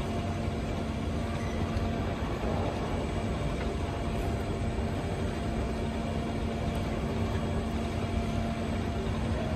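Steady low rumble of a vehicle interior with a constant hum.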